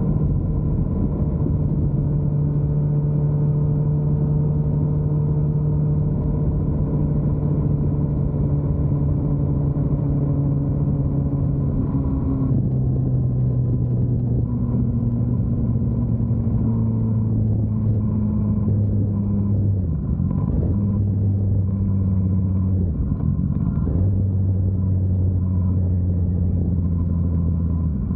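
Honda CBR1000RR's inline-four engine running through a Yoshimura exhaust. The note holds steady, steps down in pitch about halfway through, then dips briefly twice later on.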